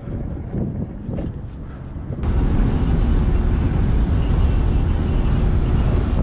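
Wind buffeting the microphone on a moving bicycle. About two seconds in, it cuts abruptly to the inside of a moving van: a loud, steady low rumble of engine and road noise with wind rushing through the open windows.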